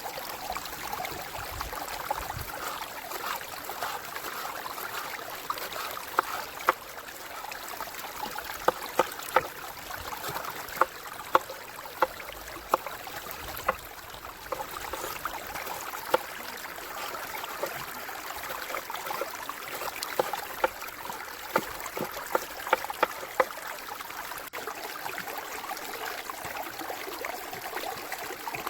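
A river flowing steadily, with sharp clicks and pops scattered over it, most of them clustered in the middle of the stretch.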